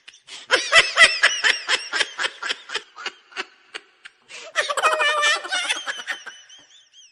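A man sobbing in a rapid series of short, high-pitched gasping bursts, then breaking into a longer, louder wail. Faint high chirping sounds come near the end.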